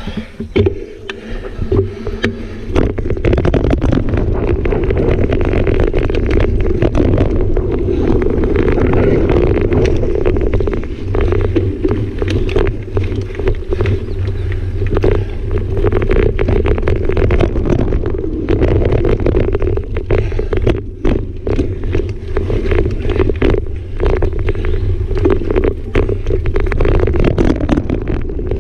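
Mountain bike riding fast over dirt singletrack, with wind noise on the microphone and a steady rumble of tyres on the trail. Frequent clicks and rattles come from the bike over bumps and roots.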